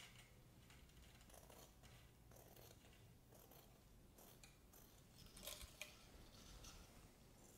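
Faint snipping of sharp scissors cutting through thin muslin cloth: a series of short, irregular snips, the loudest a little past halfway.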